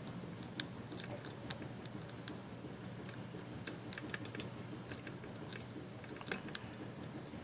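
Lock pick and tension wrench working the pins of a security-pinned challenge lock: irregular small sharp clicks, a few louder ones about half a second, a second and a half and six seconds in, over a steady low hum.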